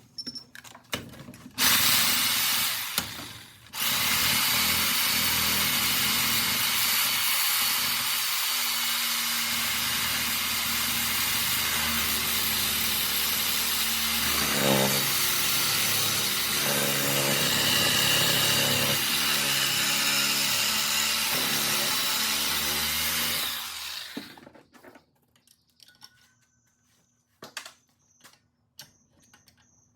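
Power tool with a cutting blade slicing through the metal shell of a microwave magnetron clamped in a vise. It starts about two seconds in, pauses briefly, then runs steadily for about twenty seconds before stopping, followed by a few light clicks and knocks.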